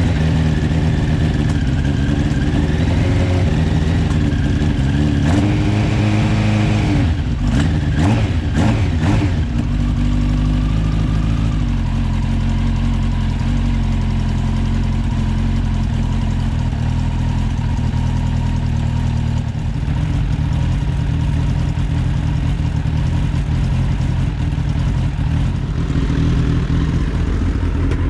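Suzuki GSX-R slabside streetfighter's inline-four engine, on freshly rejetted Mikuni carburettors, running steadily, with a quick run of sharp knocks or clatter about seven to nine seconds in, after which it settles into a steadier, lower note.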